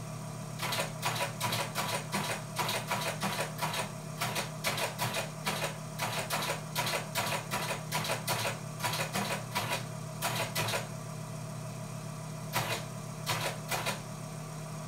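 Teletype Model 15 clattering as a message is typed on it: about ten seconds of quick mechanical keystrokes, a pause, then a few more strokes near the end. Under it runs the steady hum of the teleprinter's motor.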